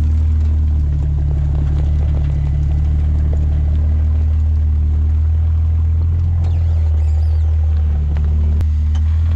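Off-road rig's engine running at low, steady revs as it crawls over rock, with a few faint clicks from the trail later on.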